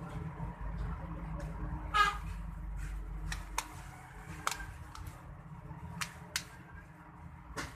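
A brief vehicle horn honk about two seconds in, over a steady low background rumble, followed by a handful of sharp, separate clicks.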